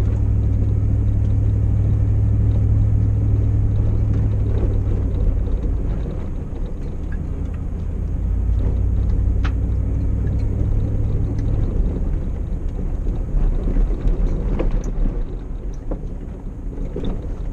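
Off-road vehicle driving a rough dirt track, its engine droning low and steady, the note shifting about six seconds in and again about twelve seconds in. A few sharp knocks and rattles come through along the way.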